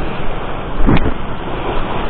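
Steady rushing of wind on the microphone over the sea, with a short thump about halfway through.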